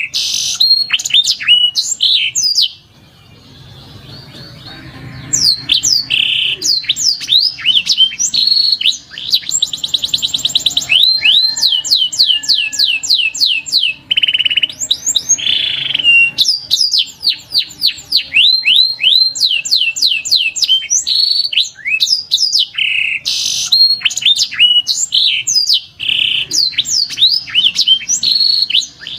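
Domestic canary singing: a long run of rapid trills and quickly repeated sweeping whistles, broken by a pause of about three seconds a few seconds in.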